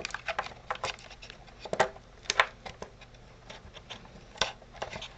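Irregular small clicks, taps and knocks of hands handling a model airplane's retract unit and air lines while fitting them into the wing, a few sharper knocks among them.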